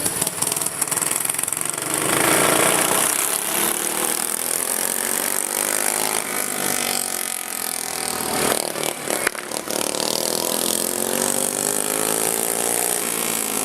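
Racing lawn mower engines running hard, their pitch rising and falling over and over as they rev and pass.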